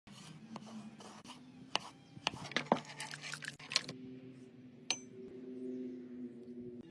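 Kitchen clatter: a quick run of sharp knocks and clicks in the first half and one more click about five seconds in, over a steady low hum.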